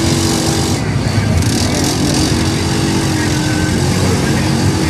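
ATV engine running hard and steady as the quad spins doughnuts through a mud pit, its pitch wavering a little with the throttle. About a second in, a hiss of mud and water spraying off the tyres rises over it for about a second.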